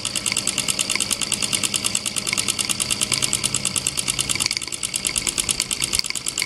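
Mamod Centurion 1313C toy steam traction engine running on live steam, its double-acting piston-valve cylinder chuffing in a rapid, even beat as the flywheel spins. The beat eases slightly about two-thirds of the way in.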